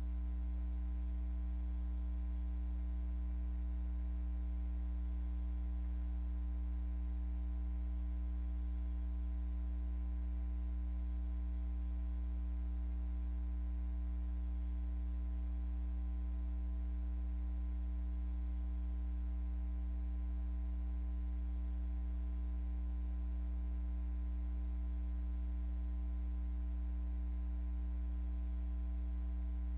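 Steady electrical mains hum: a low, unchanging drone with a few fainter higher tones above it.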